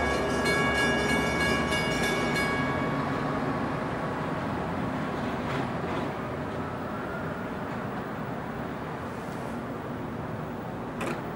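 New Jersey Transit commuter train running along the tracks, its rumble slowly fading. A cluster of steady high tones stops about two and a half seconds in, and there is a short sharp click near the end.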